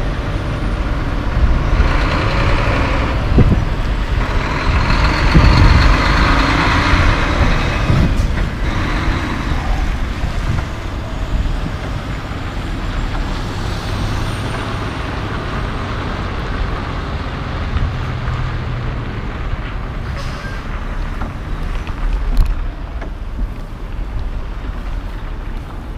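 Diesel semi-trucks running as the rigs move through at low speed, a heavy low rumble with a louder rushing, hissing stretch from about two to nine seconds in before settling to a steadier drone.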